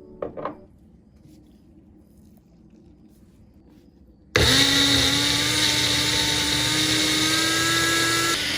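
Two light clicks, then about four seconds in an electric food processor starts abruptly and runs at full speed, a steady whirring with a whine that rises slightly in pitch as it chops.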